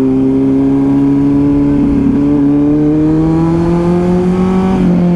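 Kawasaki Z900's inline-four engine pulling under way, its note climbing steadily through the gears' rev range for about four and a half seconds, then falling as the throttle eases off near the end.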